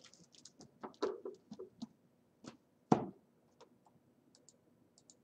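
Books being handled on a table: soft paper rustles and small clicks, with one sharp knock about three seconds in.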